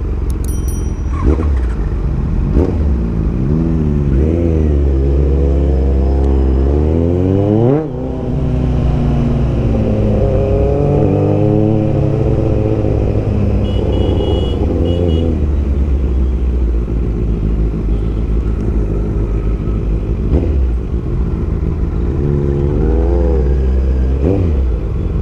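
Kawasaki Z900's inline-four engine and exhaust accelerating hard. Its pitch climbs and drops back several times as it shifts up through the gears, there is a short dip about eight seconds in, and it then runs on through traffic before revving up again near the end.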